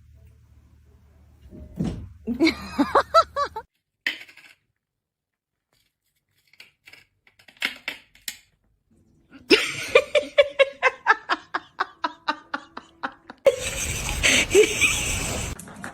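A person laughing in quick rhythmic bursts for about four seconds after the middle, with scattered knocks and clinks before it and a louder stretch of noise near the end.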